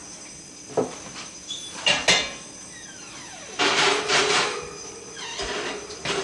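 Kitchen clatter of a baking pan and oven being handled: several sharp knocks and clanks, and a longer grating rattle about three and a half seconds in.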